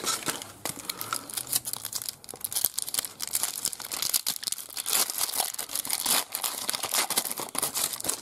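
Foil trading-card pack wrapper crinkling and tearing as it is pulled open by hand, a dense run of crackles.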